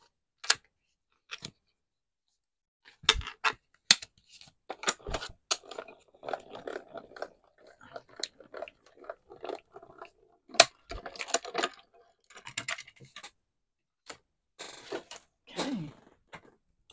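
Handheld Gemini Mini roller die-cutting machine rolled back and forth over a clear cutting-plate sandwich, crunching as the dies press through card. Sharp clicks and knocks of the acrylic plates being set down and handled come several times, the loudest about three, four and ten seconds in.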